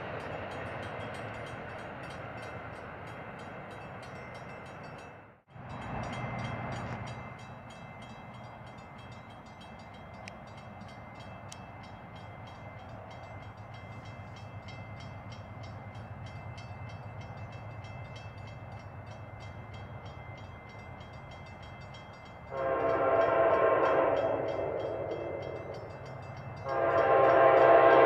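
Amtrak P42DC diesel locomotive's air horn sounding two long blasts near the end as the train nears a grade crossing, the second blast the louder. Before the horn there is a steady rumble of the approaching train under the ringing of the crossing bell.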